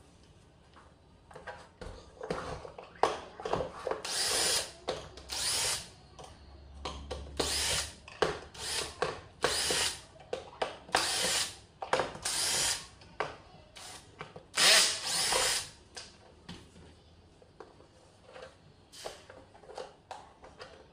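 Cordless drill-driver run in a string of short whirring bursts, backing the screws out of a Kärcher K2 pressure washer's plastic housing; the longest, loudest burst comes near the end of the run, followed by a few light clicks and knocks.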